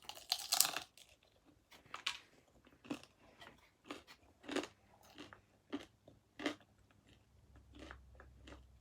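Close-up biting and chewing of oven-reheated pizza: one loud crunching bite in the first second, then irregular crunchy chews.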